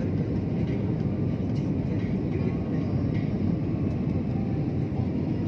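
Steady low rumble of a jet airliner's engines and airflow, heard from inside the passenger cabin.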